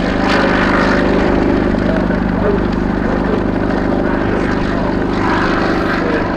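Bristol Sycamore helicopter's Alvis Leonides radial piston engine and rotor running steadily.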